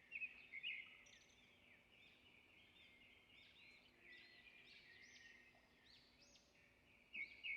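Faint bird chirping: a run of short, quick rising and falling calls, a little louder near the start and again near the end.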